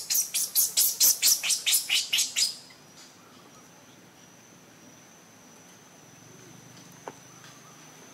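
A rapid run of about a dozen sharp, high chirping calls, about five a second, stepping slightly down in pitch and ending about two and a half seconds in. After that a faint steady high-pitched tone remains, with one small click near the end.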